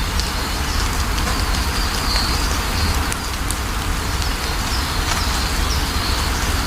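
Steady rain falling, an even hiss over a deep low rumble, with faint short bird chirps a few times.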